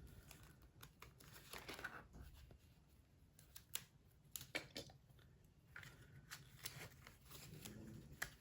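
Faint rustling and scattered soft clicks of paper banknotes and cash envelopes being handled.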